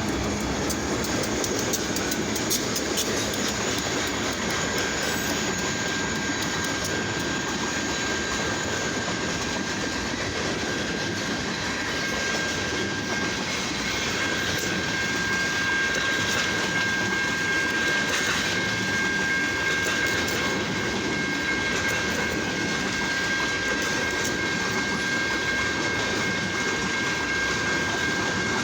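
Railroad cars rolling past at a crossing, wheels clicking over the rail joints with a steady rumble. A thin, steady high-pitched tone runs over it, growing stronger about five seconds in.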